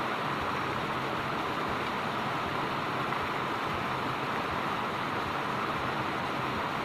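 Water pouring over a small concrete weir spillway into a stream: a steady, even rush of falling water.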